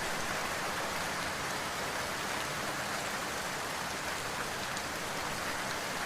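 Steady rain, an even unbroken hiss of falling drops.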